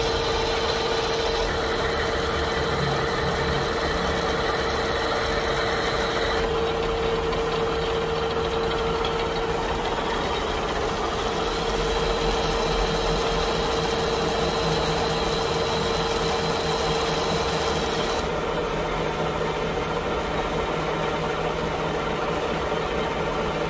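Mitsubishi manual lathe running under cut, plain-turning a long 60 mm steel shaft supported by a homemade follow rest with roller bearings: a steady machine drone with one constant high tone over cutting noise. The sound changes abruptly twice, at about 6 and 18 seconds in.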